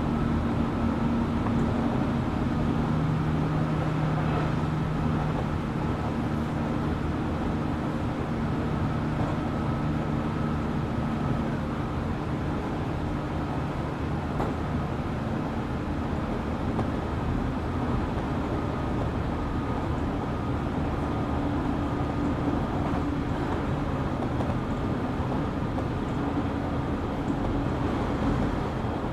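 A JR Kyushu 817 series electric train running, heard from inside the car: a steady rumble of wheels on rail, with traction-motor and gear tones that hold and shift slowly. This unit is an odd-sounding car whose motor noise resembles a Keio 7000 series.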